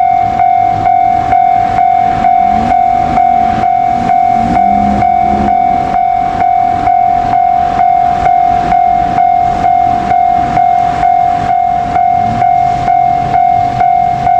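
Japanese railway level-crossing warning bell ringing steadily, a single clanging tone repeating about twice a second, with a train's low running rumble underneath.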